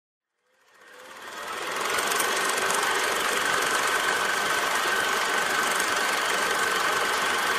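A steady mechanical whirring rattle with a faint steady tone in it, fading in over the first two seconds and starting to fade out near the end.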